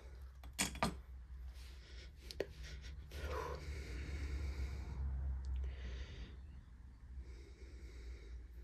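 Quiet breathing close to the microphone, with a few light clicks and taps from a small carburettor being handled.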